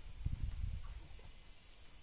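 Low thuds and knocks of a wheelbarrow loaded with wet mortar being shifted and rocked on bare dirt, strongest in the first half-second and dying away after about a second.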